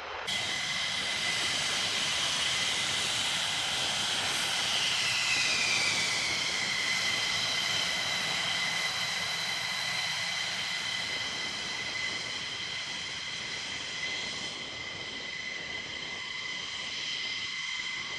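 F-15 fighter's twin Pratt & Whitney F100 turbofans running at low power as the jet taxis: a steady high jet whine over a broad rush. About five seconds in, one whine tone slides down in pitch and then holds steady.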